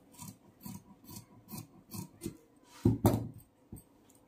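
Tailor's scissors snipping through suit fabric, about three short cuts a second, then one loud knock about three seconds in as the scissors are put down on the table.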